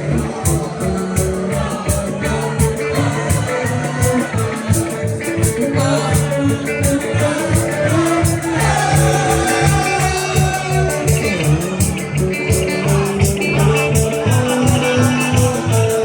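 Live rock band playing an instrumental passage: drums keep a steady beat under bass and electric guitar, and the guitar bends notes about halfway through.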